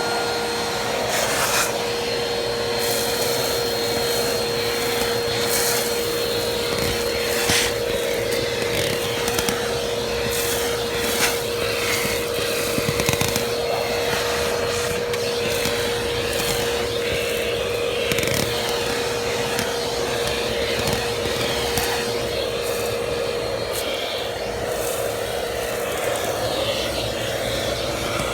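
Vacuum cleaner running steadily while vacuuming a car, a constant whine over its rushing noise, with scattered clicks and knocks as the nozzle is worked around.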